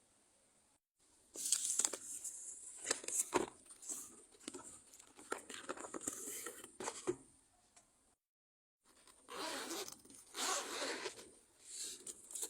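Drone packaging being opened by hand: irregular bursts of tearing, rustling and crinkling. The sound cuts out abruptly twice.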